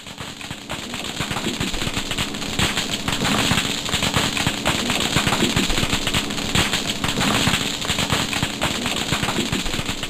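Dense crackling chorus of thousands of snapping shrimp: countless sharp snaps overlapping, growing louder over the first couple of seconds and then holding steady. Each snap comes from the collapse of a cavitation bubble shot out by a shrimp's oversized snapper claw.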